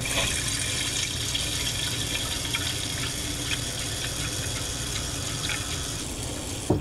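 Water running from a kitchen faucet into a saucepan, filling it in a steady stream. It cuts off suddenly near the end as the tap is turned off.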